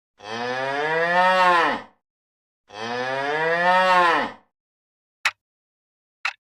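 Cow mooing twice, two long calls of nearly two seconds each that drop in pitch at the end. Then two short sharp ticks about a second apart.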